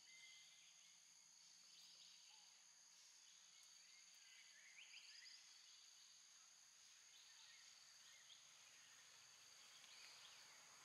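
Faint forest ambience: a steady, high-pitched drone of insects with a few short bird chirps scattered through.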